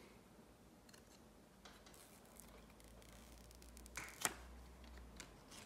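Paper screen cover being peeled off a new iPhone 13 Pro Max: quiet handling, then two sharp paper snaps about four seconds in and a smaller one a second later.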